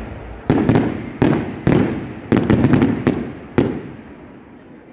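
Fireworks display: a quick series of about nine sharp shell bangs, each trailing off with an echoing tail. They stop about three and a half seconds in and the sound dies away.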